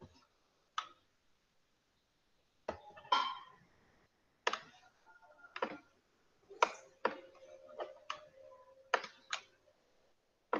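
Computer mouse clicking: about a dozen short, sharp clicks at irregular intervals, some in quick pairs.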